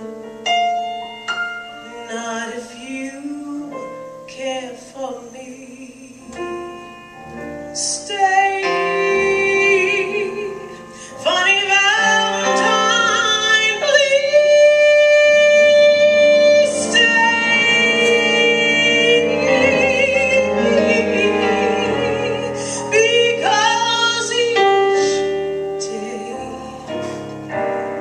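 Female jazz vocalist singing a slow ballad over a live band with keyboards. About halfway through she holds a long note.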